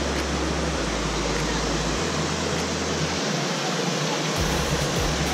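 A small stream cascade pouring into a rock pool: a steady rush of falling water.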